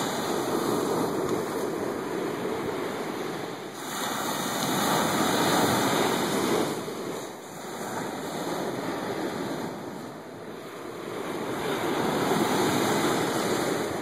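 Small ocean waves breaking on a sandy beach, the surf rising and falling as each wave breaks and washes up the sand. It is loudest about five seconds in and again near the end.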